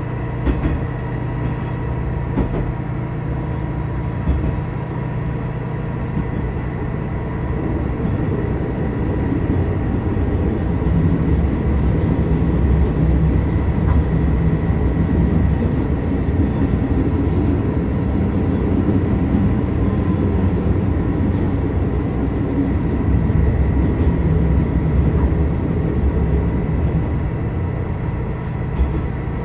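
Tosa Kuroshio Railway 8000 series diesel railcar running along the line, heard from inside the car: a steady rumble with a constant engine drone that grows louder about a third of the way in.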